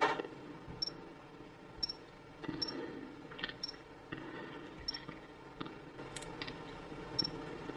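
Light clicks, about half a dozen at irregular intervals, from a fingertip tapping through the setup screens on a Sony Xperia XA1 smartphone's touchscreen.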